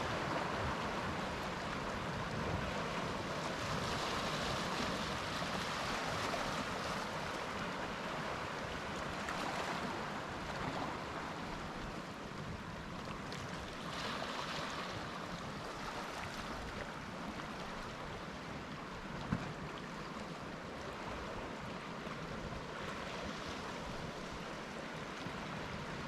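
Celtic Sea surf: waves breaking and washing up the beach in a steady rush that swells every few seconds, over a low, fluttering rumble of wind on the microphone. There is one brief tap about two thirds of the way through.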